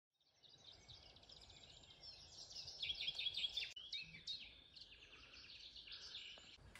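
Songbirds singing in woodland: a busy mix of quick, high chirps and trills, fading in from silence over the first half second, with a brief break just before four seconds in.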